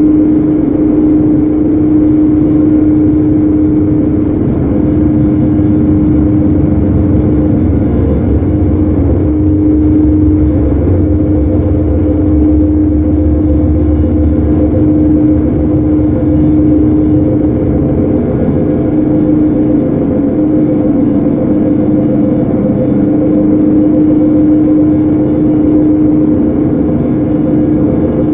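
Live electronic noise music: a loud, dense drone built on one steady held tone, with a second fainter tone above it, over a thick rumbling noise bed and a thin high hiss. It barely changes; the low rumble swells a little in the middle.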